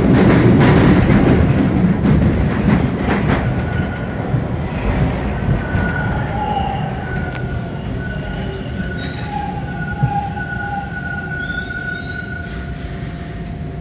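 TTC T1 subway train braking into the station, heard from inside the car: a heavy rumble of wheels on track that fades as the train slows. From about four seconds in, thin high squeals come and go.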